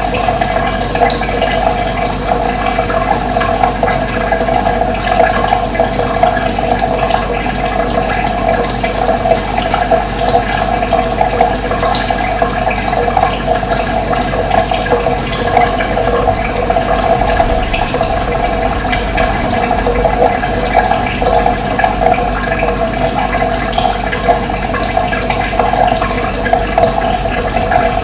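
Running water: a steady, even rushing flow that does not let up, with faint short high chirps scattered through it.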